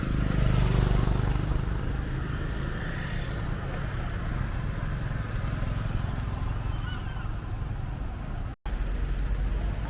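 Steady low rumble of a running motor vehicle, which drops out for an instant near the end.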